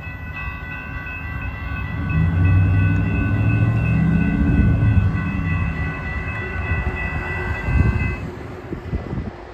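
Railroad grade-crossing warning bell ringing as one steady high tone, stopping about eight seconds in as the crossing gates rise. Under it, a low rumble swells and fades in the middle.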